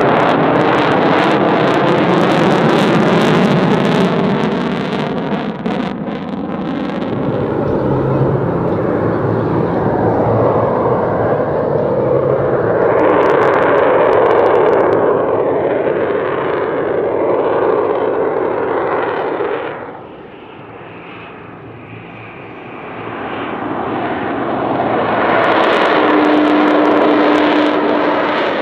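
Jet noise from an F-35A's single Pratt & Whitney F135 turbofan during a fly-by, a loud rushing roar whose tone sweeps up and down as the jet passes. It falls away about two-thirds of the way through, then builds back to full loudness near the end.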